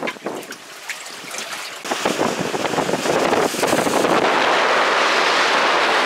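Storm wind buffeting the microphone with waves breaking on rocks. A quieter first couple of seconds with scattered light taps gives way, about two seconds in, to a loud, steady rush.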